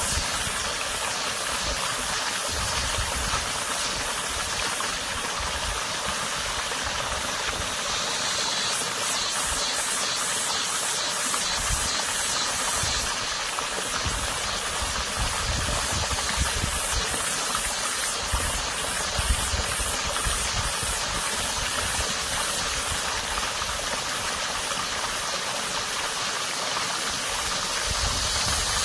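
Water running in a small stream, a steady rushing hiss, with a cicada's rapid, pulsing high buzz over it that swells from about nine to thirteen seconds in and again near the end. Irregular low rumbles come and go underneath.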